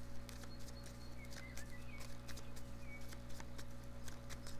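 Oracle cards being shuffled and handled: irregular light clicks and taps over a steady low electrical hum, with a few faint bird chirps about a second in and again near three seconds.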